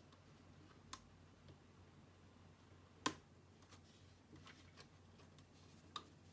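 Near silence broken by a few short, sharp clicks and taps, the loudest about three seconds in and others about one and six seconds in, like small hard objects being handled.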